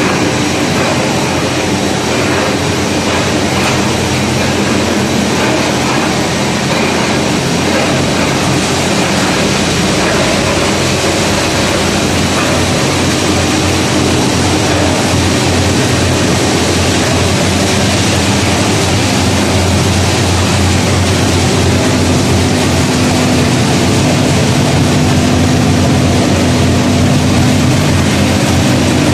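Peanut oil press and roasting machinery running steadily: a loud, even mechanical din with a low hum, the hum growing a little stronger about two-thirds of the way through.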